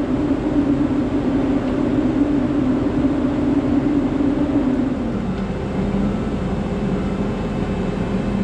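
Heavy diesel engine of logging machinery running steadily under load. About five seconds in, its pitch drops as the revs come down.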